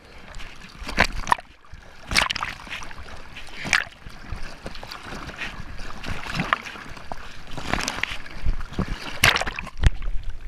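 Whitewater from a breaking reef wave churning and splashing right at the microphone, with irregular sharp splashes every second or two.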